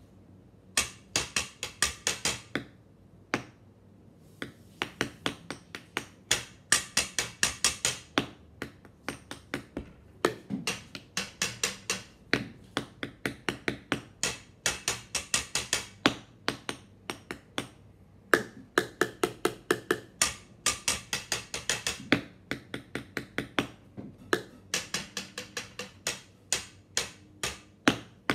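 A child drumming with a thin stick on a wooden tabletop: quick runs of sharp taps, about five a second, broken by short pauses.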